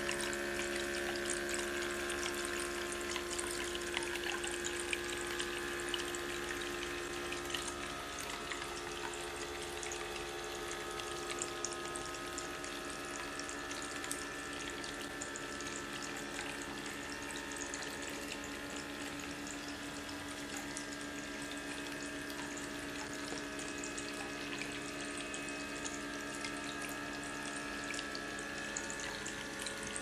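Water trickling and splashing as it spills from clay pot to clay pot down a small tabletop fountain and falls into a plastic tub, with a steady hum underneath.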